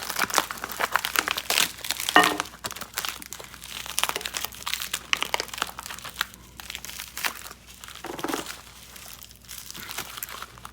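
Packing material crinkling and crackling in irregular bursts as it is handled and pulled off the parts.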